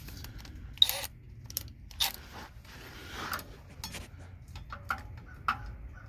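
Scattered metallic clinks and knocks of hand tools, a wrench and a pry bar, working at the front drive shaft's flange bolts on a 2002 GM full-size SUV; the sharpest knock comes just under a second in.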